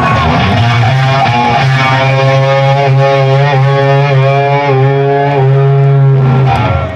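An amplified electric guitar, played live, holds one long sustained note with a wavering vibrato. The note cuts off near the end.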